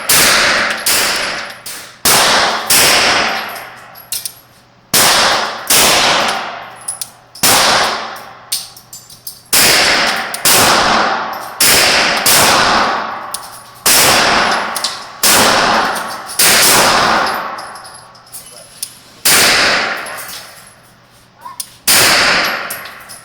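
Glock 34 9mm pistol fired in single shots at a steady pace, about one a second, each shot ringing out in a long echo, with a short pause about two-thirds of the way through.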